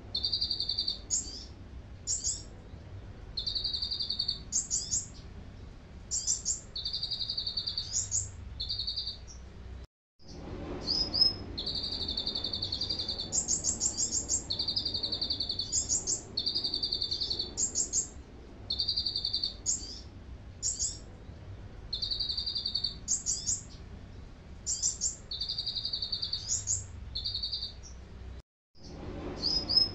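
Caged konin songbird singing canary-style song: steady high whistled notes about a second long alternate with quick, higher trills, phrase after phrase. The sound cuts out completely for a moment twice.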